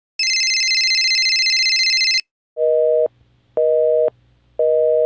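Telephone sound effect: a high, warbling electronic tone for about two seconds, then a telephone busy signal beeping about once a second, half a second on and half off.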